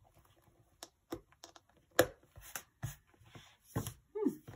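Handling of a black Franklin Covey Anna ring binder as its strap is fastened and the closed binder is settled on the table: a few short knocks and taps, the loudest about two seconds in.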